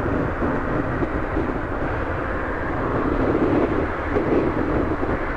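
Riding noise of a Yamaha FZS600 Fazer motorcycle: steady wind rush on the helmet microphone with the inline-four engine running underneath.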